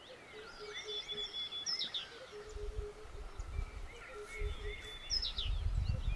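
Several birds chirping and calling over one another, with short quick whistles and a low note repeated about four times a second. A low rumble comes in from about two and a half seconds in.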